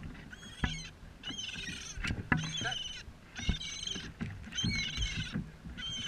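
Seabirds crying: a run of harsh, wavering calls, about one a second, with a few dull knocks in between.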